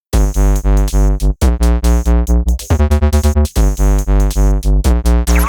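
Electronic music: synthesizer tones over a heavy bass that pulses in a fast, steady rhythm, with short breaks about a second and a half and three and a half seconds in.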